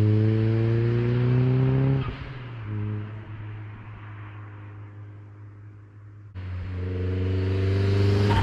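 Turbocharged Mazda Miata's four-cylinder engine accelerating hard with rising pitch, then the throttle lifts about two seconds in and the engine sound drops and fades. It comes back loud suddenly near the end, revving up again.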